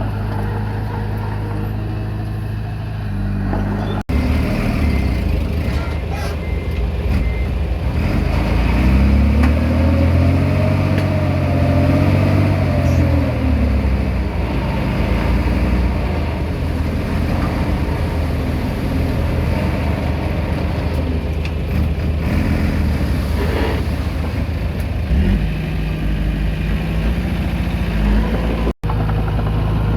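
Komatsu D20P bulldozer's diesel engine running, working harder from about four seconds in, with its pitch rising and then falling again around ten seconds in while pushing soil.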